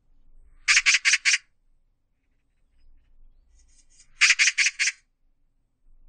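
Oriental magpie calling in two bursts of harsh, rapid chattering notes: four quick notes about a second in, then about five more some three seconds later.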